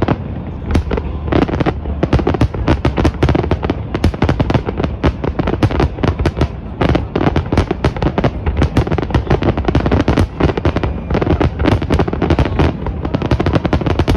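Fireworks going off in a dense, continuous barrage of bangs and crackles, with many reports each second and a low rumble beneath.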